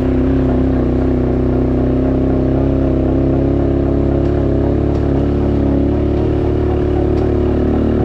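ATV engine running at a steady pace while being ridden, a constant drone with little change in pitch.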